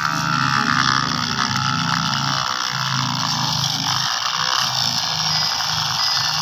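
Small motor and gears of a wired homemade toy tractor whirring steadily as it pushes loose soil with its front blade, the hum wavering in pitch as the load changes.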